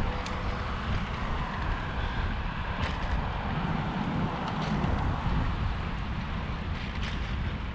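Wind buffeting the microphone of a camera riding along a concrete path, over the rolling noise of wheels on the concrete, with a few sharp clicks as the wheels cross joints in the slab.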